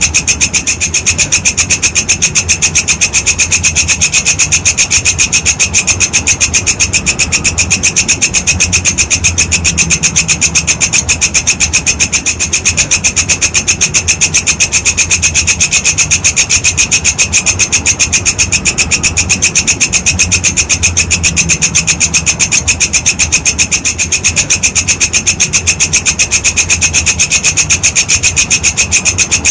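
Walang kecek insect stridulating: a loud, unbroken, fast-pulsing rasping call.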